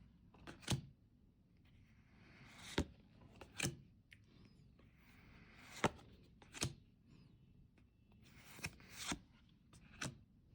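Pokémon trading cards being handled one after another, with soft sliding rustles each ending in a sharp flick or snap, about seven times in ten seconds.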